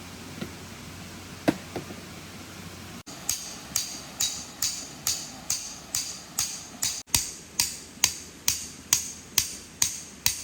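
Tent pegs being hammered into the ground: a few scattered knocks, then a steady run of hammer blows at about two to three a second.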